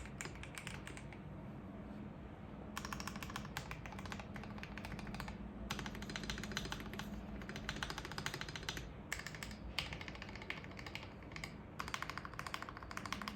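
KBD67 Lite R3 mechanical keyboard being typed on in quick bursts of keystrokes with short pauses between them. It has Krytox-lubed Akko CS Starfish linear switches, screw-in stabilizers and Poron case foam.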